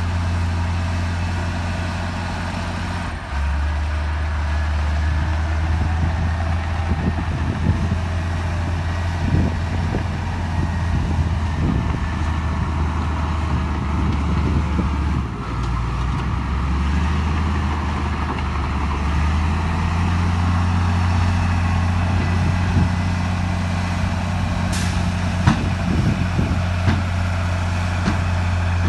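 Heavy diesel engine of earthmoving machinery running under load, its low note stepping up and down a few times as the load changes, with scattered metallic clanks and knocks, most of them in the middle stretch and near the end.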